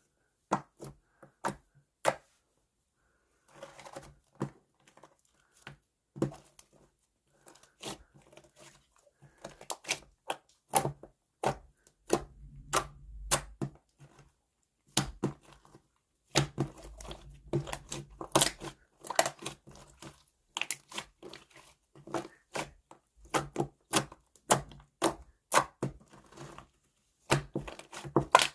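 Slime being squished, pressed and stretched by hand, giving a run of irregular sticky clicks and pops, with a couple of longer squelching stretches in the middle.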